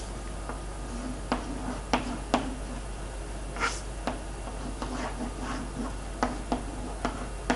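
Chalk on a chalkboard as a diagram is drawn: a string of short, sharp taps as strokes start and stop, with a brief scratchy stroke about three and a half seconds in.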